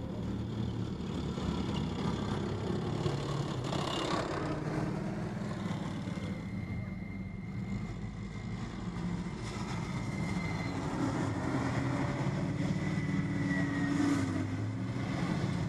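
An AMX-56 Leclerc main battle tank's V8 Hyperbar diesel engine running hard as the tank drives at speed across a sand arena, its hum rising and falling. A thin high whine holds through the second half.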